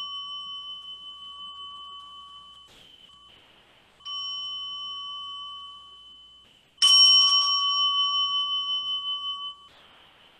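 A small meditation bell rung three times. The ring of the first strike is already dying away, a second strike comes about four seconds in, and a third, the loudest, about seven seconds in. Each ring is a clear high tone that fades slowly and then cuts off sharply.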